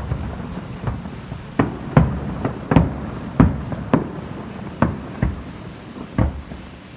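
Aerial firework shells bursting over the sea: about a dozen sharp booms in seven seconds at uneven intervals, some in quick pairs, each with a brief rumbling tail, growing a little weaker near the end.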